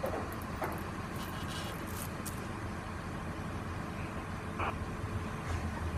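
Mobile crane's diesel engine running steadily, a low even rumble, with a few faint short high-pitched sounds over it.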